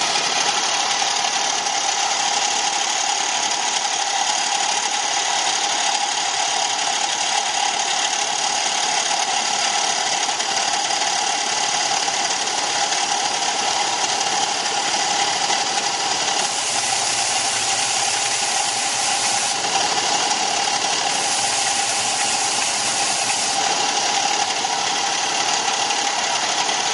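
Benchtop belt and disc sander running steadily while small wooden game pieces are sanded on it. The motor and abrasive give a constant whirring hiss, which turns brighter at times in the second half as the wood is pressed on.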